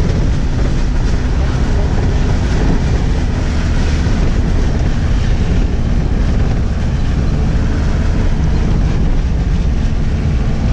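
Steady rumble of a vehicle driving on a wet dirt road, heard from inside the cab, with wind buffeting the microphone.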